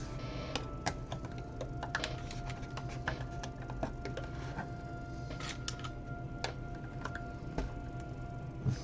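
Lego tiles and bricks being handled and pressed onto plates: small hard-plastic clicks and taps at irregular intervals, over a faint steady hum.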